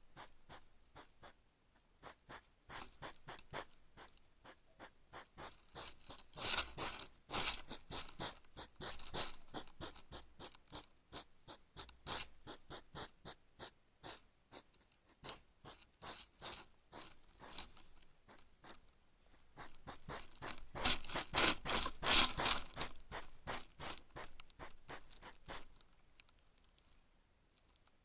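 European hedgehog foraging right at the trail camera, a rapid run of small scratching and crunching clicks and scrapes. It grows louder twice, a few seconds in and again past the middle, then fades near the end.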